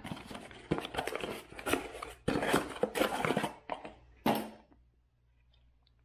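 Small cardboard box being opened by hand: a run of scraping, rustling cardboard with a few sharp knocks as the flaps are pulled open and a horn is slid out, stopping about four and a half seconds in.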